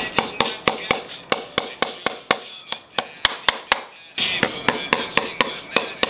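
A shoemaker's hammer tapping tacks into a fibreboard insole on a shoe last: quick, even metal-on-tack knocks, about four a second.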